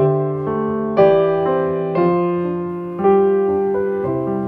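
Background music: a slow, gentle piano tune, with a new chord struck about once a second and left to ring and fade.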